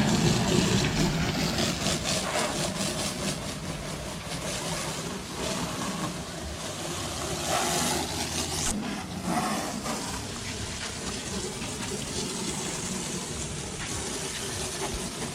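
Pressure washer spraying water: a steady hiss that swells and fades as the spray moves over the surface.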